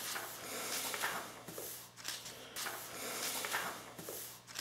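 Pages of a book being handled and turned: soft paper rustling in several short bursts, over a faint low steady hum.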